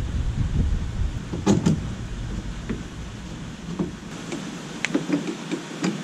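Sharp clicks and clinks of a screwdriver and loose mounting hardware as the aluminum-bar canoe yoke is unbolted from the gunwales and lifted out, two close together early and a scattered run near the end. A low background rumble fades out about four seconds in.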